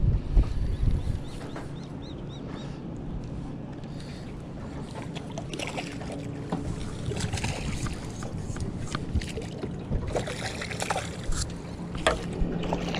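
Water splashing in gusts as a hooked squire (a young snapper) thrashes at the surface beside the boat and is drawn into a landing net. Low wind buffeting on the microphone in the first second.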